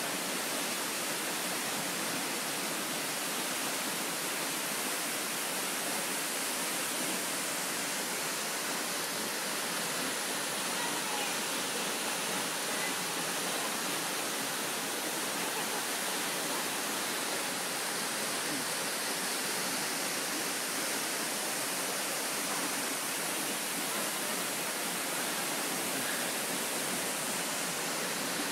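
Cedar Falls waterfall pouring into its plunge pool: a steady, even rush of falling water.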